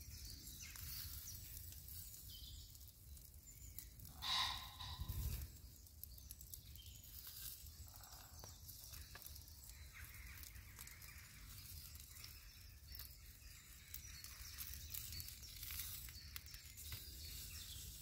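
Faint woodland ambience with a brief bird call about four seconds in, followed by a soft low knock.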